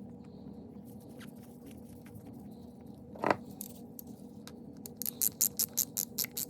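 Small metal parts being handled, with a single sharp knock about three seconds in, then a ratchet wrench clicking in quick strokes, about six clicks a second, from about five seconds on, tightening a fastener during carburetor reassembly. A steady low hum runs underneath.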